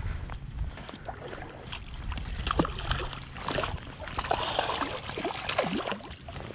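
Water splashing and sloshing as a hooked rainbow trout thrashes at the surface of a creek and is scooped into a landing net, with irregular slaps and plops that grow busier about two seconds in.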